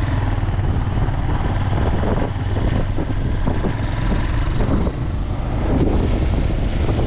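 Wind buffeting the microphone on a moving vehicle, over a steady low engine and road rumble.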